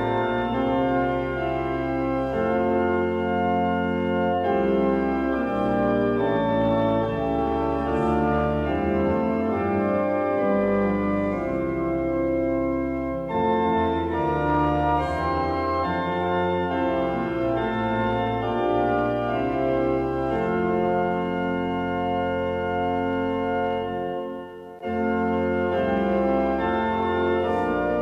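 Organ playing held chords that change every second or so, with a short break near the end.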